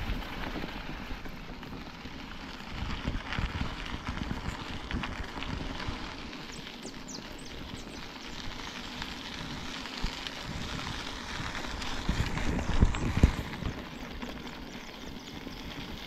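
Mountain bike rolling along a rough rural road: a steady crackle and crunch of tyres with small rattles, and heavier knocks and buffets about 3 seconds in and again about 12 seconds in.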